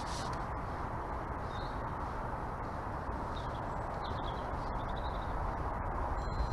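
Steady outdoor rushing noise with a few faint, high bird chirps scattered through it.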